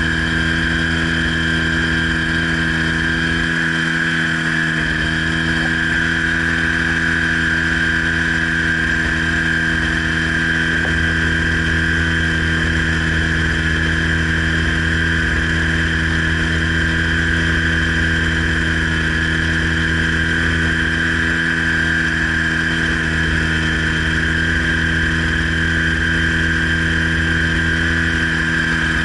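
Weight-shift microlight trike's engine and propeller running steadily in flight, holding an even pitch throughout.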